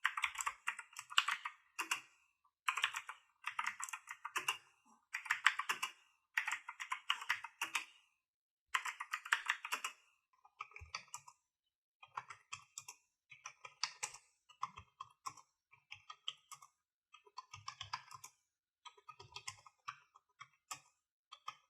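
Fast typing on a full-size mechanical keyboard with Gateron Blue clicky switches: bursts of loud, bright clacking. About ten seconds in it gives way to quieter, sparser typing on a cheap membrane keyboard with duller thuds.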